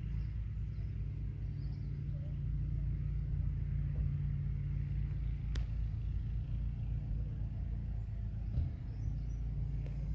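A steady low rumble, with one sharp click about halfway through.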